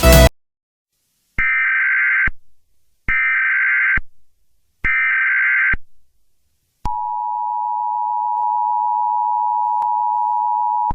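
Emergency Alert System tones: three short screeching bursts of SAME header data, about a second each with pauses between, then the steady two-tone EAS attention signal (853 and 960 Hz together) starting about seven seconds in. Music cuts off at the very start.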